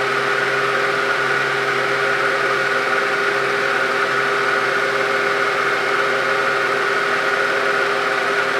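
Milling machine spindle running at a constant speed: a steady mechanical whine with a few held tones.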